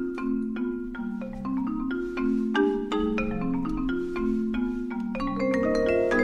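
Live mallet-percussion music: a marimba plays a quick line of struck notes in its lower middle register, each note ringing briefly, with vibraphone among the instruments.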